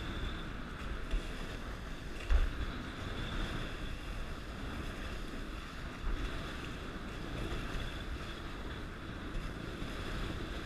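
Water rushing and splashing along the hulls of a Dart 18 catamaran sailing fast through chop, with wind buffeting the microphone. There is a sharp thump about two seconds in and a smaller one around six seconds.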